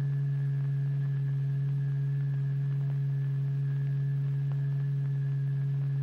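Steady low electronic tone from a tone generator, held at one pitch with a few faint overtones above it. It is the vibration frequency that drives the fluid drop in a cymatics experiment.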